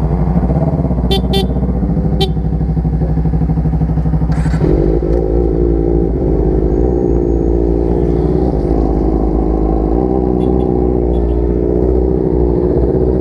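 Motorcycle engine running steadily under way, its note shifting and strengthening about four and a half seconds in. A few short clicks come in the first two seconds or so.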